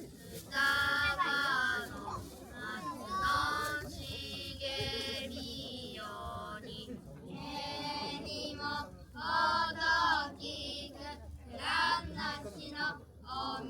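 High-pitched children's voices in short sung or called-out phrases, with pauses between them.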